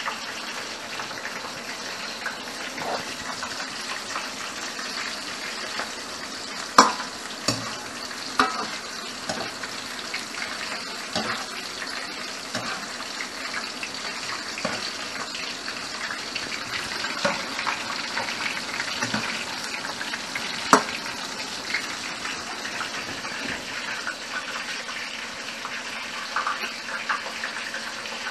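Water running from a kitchen tap into a stainless steel sink as things are rinsed by hand, with a few sharp clinks of dishware.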